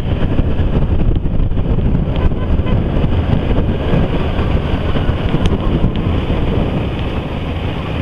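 Wind buffeting the microphone of a motorcycle-mounted action camera while riding, a steady loud rumble with the motorcycle's engine running underneath.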